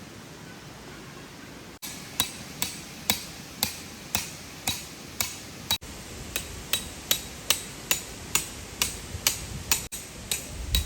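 Hammer blows, about two a second, each with a short metallic ring, likely driving tent pegs into the ground. They start about two seconds in after a steady hiss of background noise.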